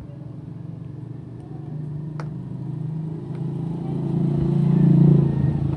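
A motor vehicle's engine passing by, a steady low hum that swells to its loudest about five seconds in and then eases off. A couple of faint small clicks sound before it grows loud.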